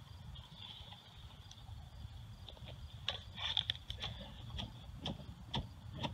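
Low wind rumble on the microphone with a faint steady high-pitched tone, and from about three seconds in a series of sharp clicks and knocks from the camera being handled and moved.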